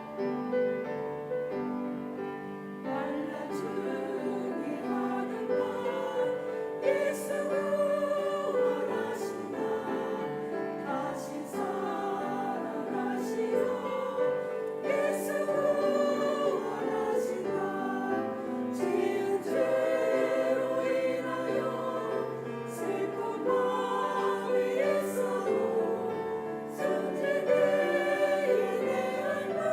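A choir singing with piano accompaniment: many voices holding long notes in a hymn-like song.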